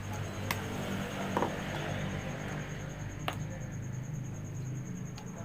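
Light handling noises from small parts being moved, with two sharp clicks, over a steady low hum.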